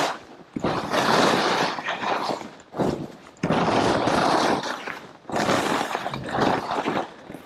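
Skis swishing and scraping through fresh snow in a run of turns, each turn a loud hiss lasting a second or two, about four in a row with short lulls between.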